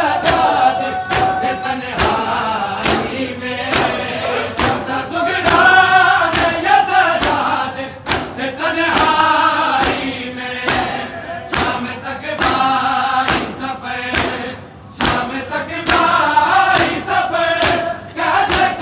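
A crowd of men chanting a Muharram noha (lament for Husayn) together, with hands beating on the chest (matam) in unison about once a second.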